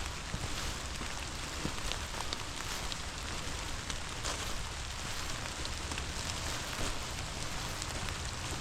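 Steady rain falling, with many scattered small drop ticks close by.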